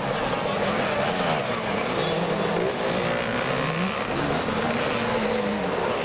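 Several 250cc two-stroke motocross bikes racing together, their engines revving up and down in overlapping pitches as the riders work the throttles through the turns and downhill.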